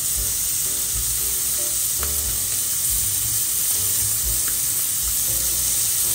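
Chicken breast slices frying in lard in a pan over medium heat: a steady sizzle.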